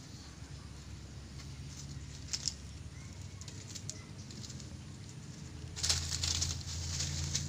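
Leaves and stems rustling in garden undergrowth, with scattered light ticks. The rustling turns louder and busier for the last second and a half.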